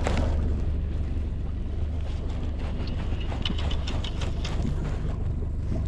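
Steady low rumble of wind on the microphone over open water, with a run of quick light clicks in the middle.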